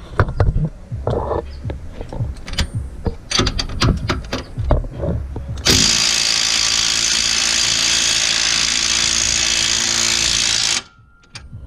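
Clicks and knocks of parts being handled, then an impact wrench runs for about five seconds, hammering a nut onto a press-fit suspension bolt to draw it back into its bushing, and stops suddenly.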